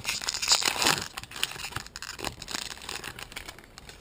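Wrapper of a baseball card pack crinkling as it is torn open and handled, loudest in the first second or so and thinning out after.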